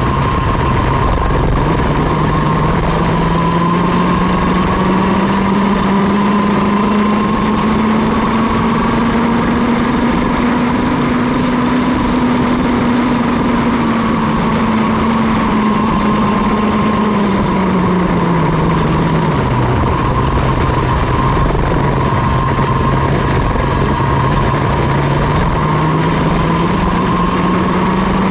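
Mini ROK kart's 60cc two-stroke engine at racing speed, heard onboard. Its note climbs slowly for about the first half, falls away around two-thirds of the way through as the revs drop, then climbs again near the end.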